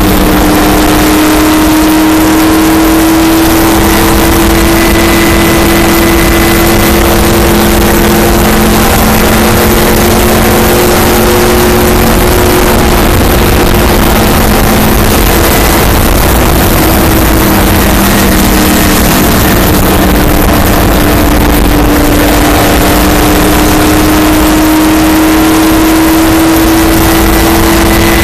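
Stock car's V8 engine at racing speed heard from inside the cockpit: a loud, steady drone whose pitch sags slightly midway and climbs again near the end, over wind and road noise.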